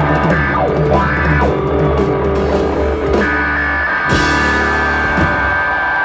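Live rock band playing through a PA: electric guitar, bass and drum kit with cymbal crashes, and a high note held from about halfway through.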